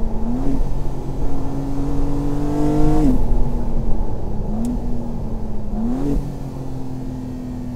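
BMW M2 G87's twin-turbo inline-six heard from inside the cabin, pulling hard with its pitch climbing steadily. Its pitch falls sharply about three seconds in, as at an upshift, then holds and rises again.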